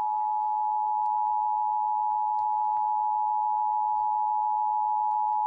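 Emergency alert attention tone, a single steady high tone held without a break, sounding ahead of a severe thunderstorm warning.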